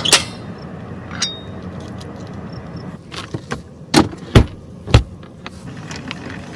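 A string of sharp clicks and knocks, one with a short metallic ring about a second in, then three heavy thumps close together about four to five seconds in.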